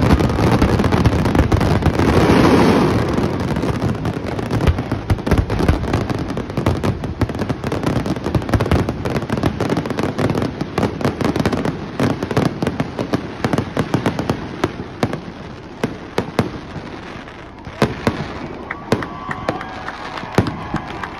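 Fireworks finale barrage: a dense, continuous rattle of aerial shell bursts and crackle, loudest in the first few seconds, thinning out toward the end into separate booms.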